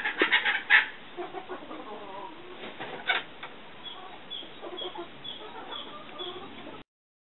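Domestic turkeys calling: a rapid, loud rattling series of clucks in the first second, a sharp click about three seconds in, then a run of faint high peeps about twice a second. The sound cuts off suddenly near the end.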